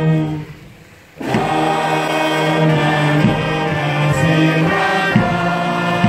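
Ceremonial music with a choir singing long held notes over instrumental backing. It drops away about half a second in and comes back just after a second.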